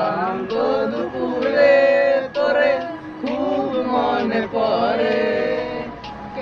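A small group of young men singing together without accompaniment, in long held phrases.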